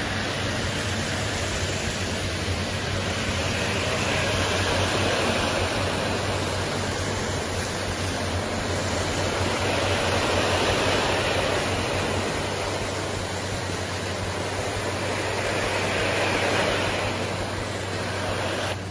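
Foam lance spraying cleaning foam onto a truck trailer's rear doors: a loud, steady hiss of spray that swells about three times, over a low steady machine hum.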